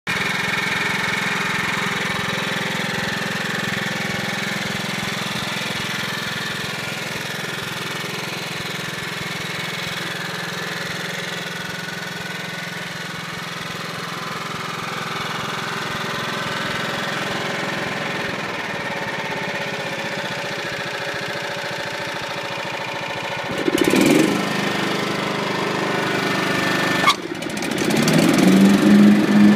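Toro 36-inch Proline commercial walk-behind mower engine running steadily. Near the end there is a brief surge, then a sharp knock, after which the engine runs louder and higher.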